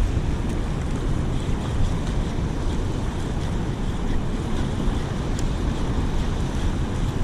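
Wind buffeting the microphone as a steady low rumble, over a wash of water noise.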